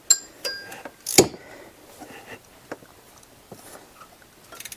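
Metal parts and hand tools being handled in a cramped engine bay: a sharp clink with a short metallic ring at the start, a louder knock about a second in, then a few faint scattered clicks.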